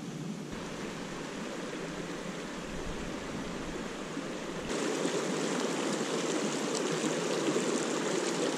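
Shallow mountain creek running over a rocky bed, a steady rushing of water that becomes suddenly louder and fuller about halfway through.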